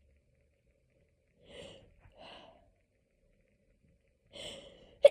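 A person's breathing during a hay fever sneezing fit. There are two short breaths about a second and a half in, then a gasping intake near the end as the next sneeze builds, and it bursts out sharply right at the end.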